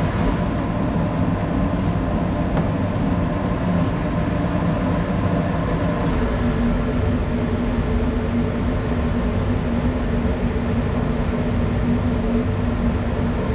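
CO2 laser cutter's fan running steadily, drawing air down through the honeycomb cutting table: a constant airy rush with a low hum that grows a little stronger about halfway through.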